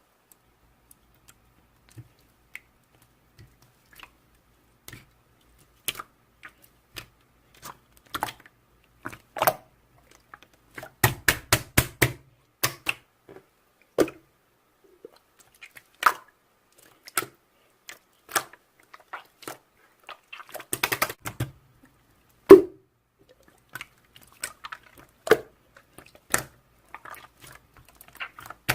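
Irregular light clicks and taps in a small room, with quick runs of clicks about a third of the way in and again past the middle, and one sharper knock soon after.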